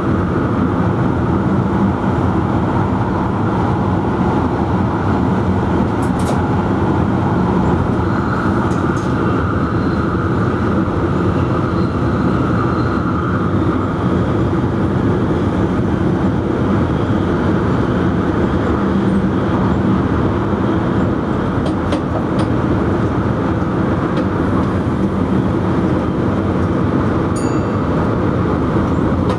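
NS VIRM double-deck electric train running steadily at speed, heard from the driver's cab: a constant low hum and rushing wheel-on-rail noise, with a few faint ticks.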